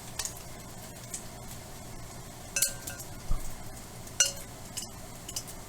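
A few sharp clinks and knocks of kitchenware, the loudest about two and a half and four seconds in, over a steady low hum.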